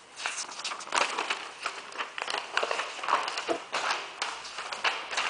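Paper rustling and crackling in uneven bursts as a printed instruction manual is handled.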